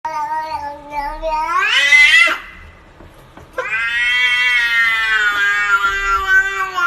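A cat yowling in two long drawn-out meows: the first rises in pitch toward its end, and the second, after a short pause, is held and slowly falls.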